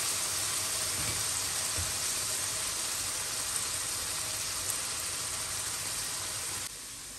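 Chopped onions sizzling in hot oil in a stainless steel kadai as they are being browned: a steady frying hiss that drops suddenly to a quieter level near the end.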